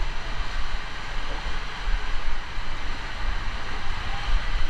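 Steady rushing water noise with an uneven low rumble.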